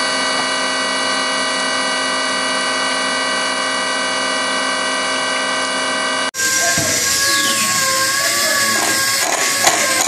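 CNC milling machine cutting metal under flood coolant: a steady, high machine whine made of many even tones. It cuts off abruptly a little after six seconds, giving way to a different mechanical whine whose pitch wavers, with a few knocks near the end.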